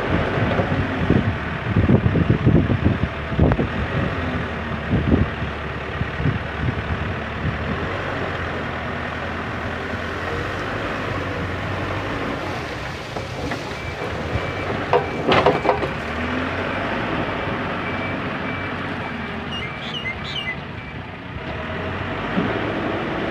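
JCB 3CX backhoe loader's diesel engine running under load, with irregular knocks and clanks over the first few seconds and a sharp clank about 15 seconds in. A high-pitched reversing alarm beeps from about 14 to 21 seconds.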